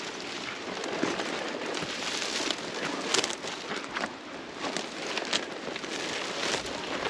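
Dry twigs and dead brush crackling, snapping and rustling without pause as someone pushes through a dense thicket on foot, with many small sharp snaps.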